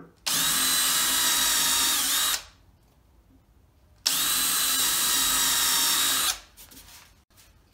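Cordless drill running a 1/8 inch bit into a wooden post to bore two pilot holes: two steady runs of about two seconds each, with a short pause between.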